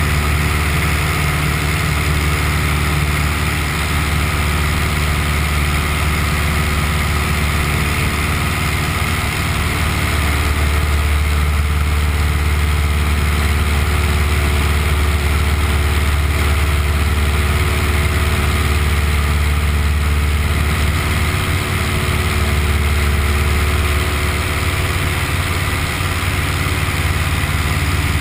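Piper Cub's engine and propeller drone, heard inside the small cabin, running steadily at climb power after take-off, with a strong low hum under wind noise. The sound grows a little louder about ten seconds in.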